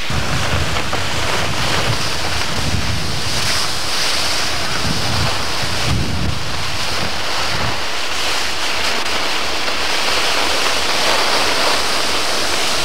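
Wind buffeting the camcorder microphone: a loud, steady rushing hiss with low rumbling gusts through the first eight seconds or so.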